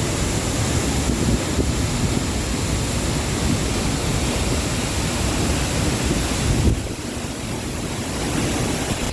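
Steady rushing roar of Franklin Falls' falling water, with wind buffeting the microphone; it drops back and turns duller about two-thirds of the way in.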